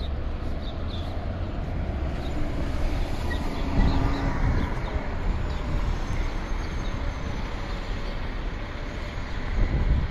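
Steady low rumble of vehicles, with a faint steady tone for a second or two near the middle.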